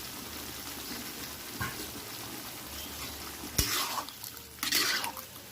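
Chicken Manchurian gravy sizzling steadily in a kadai, with a sharp knock of the spatula against the pan about three and a half seconds in and two short spatula scrapes near the end as it is stirred.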